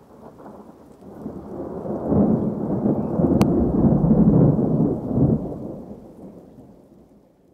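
A deep rumble that swells over about a second, holds for a few seconds and then slowly dies away, with a single sharp click in the middle.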